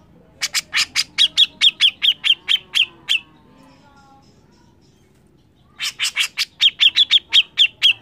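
Grey-cheeked bulbul (cucak jenggot) giving its harsh, rapid 'mbeset' chatter: two runs of sharp repeated notes at about six a second. The first run lasts nearly three seconds, and after a short pause the second starts near six seconds in.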